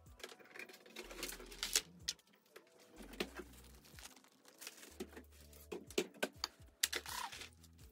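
Kitchen handling noises: plastic food packaging crinkling and items knocked and set down on the counter, a string of sharp clicks and taps. Soft background music runs underneath.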